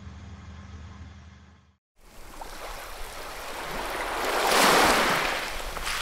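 A low rumble fades out to a moment of silence about two seconds in. Then a rushing water-splash sound swells to a peak near the end and dies away.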